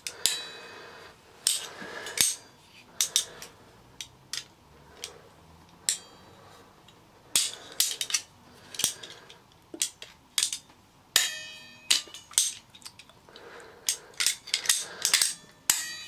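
Irregular sharp metal clicks and knocks as locking pliers grip and lever a bent part in the base of a Hoover Senior upright vacuum cleaner, bending it back straight. A short squeak about eleven seconds in.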